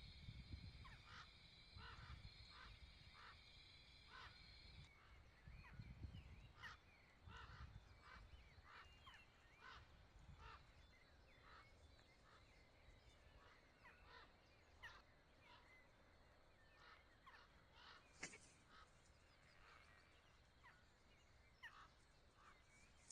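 Faint outdoor birds chirping repeatedly, with a steady high insect drone that stops about five seconds in. A low rumble, like wind, comes in the first few seconds, and there is one sharp click later.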